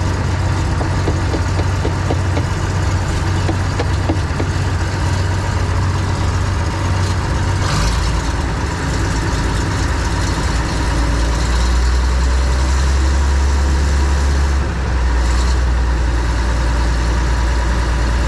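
John Deere 4400 combine running steadily with a low drone. The drone drops lower and grows stronger a little under halfway through, with a brief dip about three-quarters of the way in.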